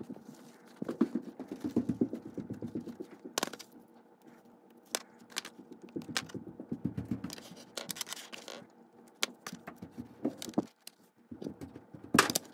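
Small plastic and metal parts of a vintage Athearn model locomotive's drive truck and chassis being handled and fitted back together: clusters of rattling clicks and scrapes, with separate sharp snaps, the loudest near the end.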